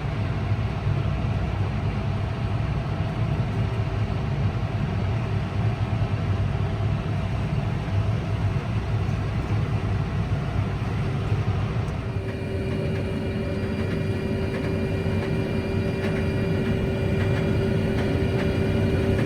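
Case IH 6160 Axial-Flow combine running steadily under load, a constant deep machine drone. About twelve seconds in the sound shifts and a steady whine joins the drone.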